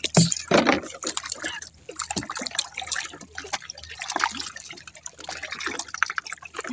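Irregular dripping and splashing of seawater from a wet multi-hook handline and its hooked small fish as they are hauled into the boat and unhooked.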